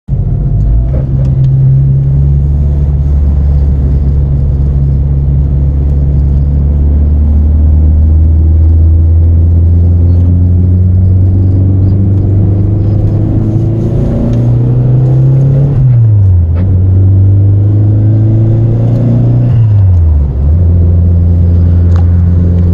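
Turbocharged car engine running under load while driving, holding a steady pitch, then revving up and dropping sharply twice as gears are shifted up.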